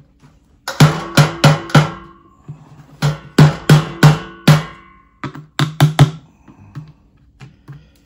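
A dusty pleated cartridge filter being knocked against the stainless-steel drum of a canister vacuum to shake the dust out. The hits come in three quick runs of four or five loud knocks, each leaving the metal drum ringing, then a few fainter knocks near the end.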